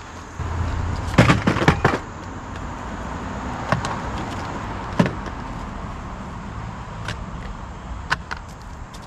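A quick cluster of knocks and clatter about a second in, then single sharp clicks every second or two over a steady low hum.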